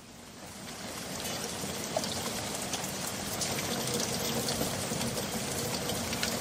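Steady rain falling, swelling in over the first second and a half and then holding even.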